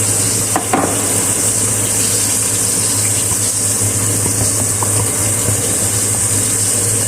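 Chicken pieces frying in hot oil, a steady sizzle and bubbling, with a steady low hum underneath.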